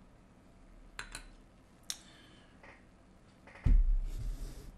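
Glass beer bottle and beer glass clinking together a few times while beer is poured, the sharp clinks about one and two seconds in. Near the end a loud thump with rustling.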